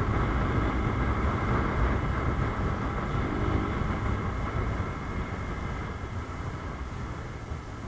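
Rusi Gamma 200 motorcycle's exhaust and engine running at highway speed, heard from on the bike. It gets gradually quieter over the last few seconds.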